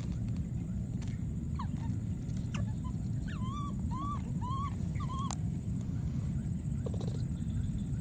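Outdoor ambience: a steady low rumble with a thin, steady high-pitched tone over it. Midway come four short calls that rise and fall, about half a second apart, along with a few faint clicks.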